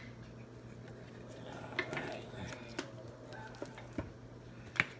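Kitchen utensils clinking and knocking against a plastic pitcher, a few scattered clicks, with the sharpest knock near the end.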